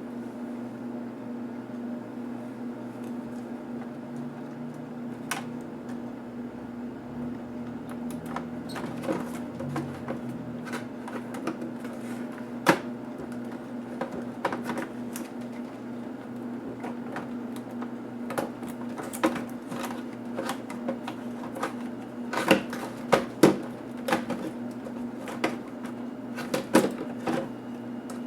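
Scattered sharp clicks and taps of tools and plastic parts as a Toshiba Satellite A505 laptop is taken apart by hand, over a steady low hum. The taps come thicker near the end.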